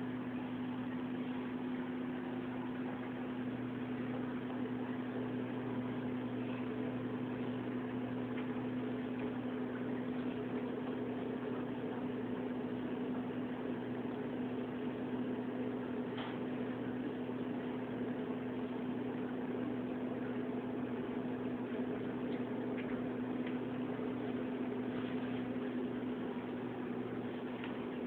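Steady low hum of a running household appliance, unchanging throughout, with a few faint clicks.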